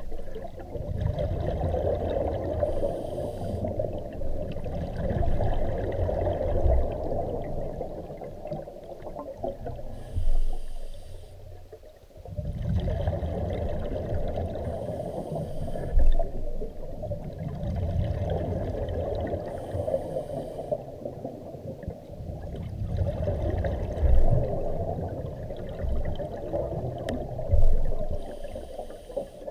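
Scuba regulator breathing underwater: about five breath cycles, each a short high hiss of inhalation through the regulator followed by a longer low rumble of exhaled bubbles.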